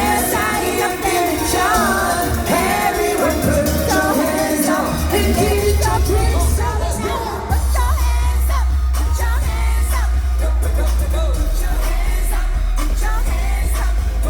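K-pop song performed live over a loud venue sound system during a sound check: singing over a backing track, with a heavy bass line coming in about halfway through.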